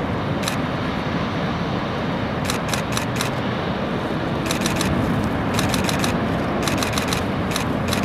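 Steady wash of wind and ocean surf noise, broken by bursts of rapid camera shutter clicks, three to five at a time, several times over.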